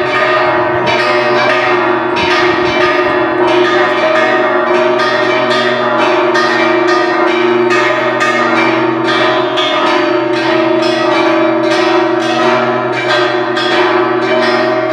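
Church bells pealing continuously, struck rapidly at about three strokes a second, with the tones of several bells ringing on and overlapping.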